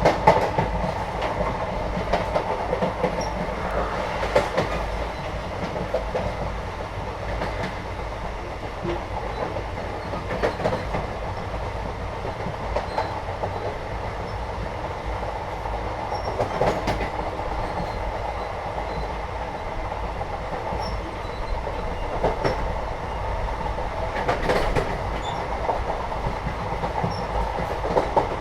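Inside a moving Indian passenger train: a steady low rumble of the coach with rattling and the irregular clack and knock of the wheels over rail joints.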